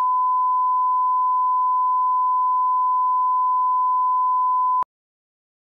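Colour-bar line-up test tone, the steady reference tone that leads a tape or video master. It is one pure, unbroken pitch that cuts off suddenly about five seconds in.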